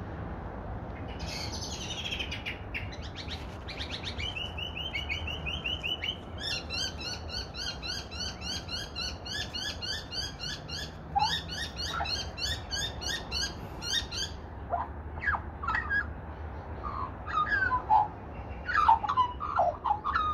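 Australian magpies calling: a fast run of short, high repeated chirps, then louder, lower warbling notes in the last few seconds.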